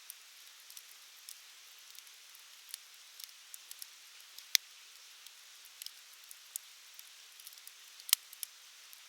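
Wood fire crackling: a soft steady hiss with frequent small pops, and two louder sharp pops about four and a half seconds in and near the end.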